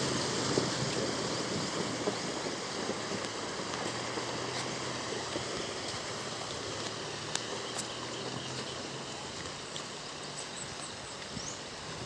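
Isuzu D-Max pickup wading through a shallow river: a steady rush of water churned around its wheels over a low engine hum, slowly fading as the truck moves away. The hum stops about nine seconds in as it leaves the water.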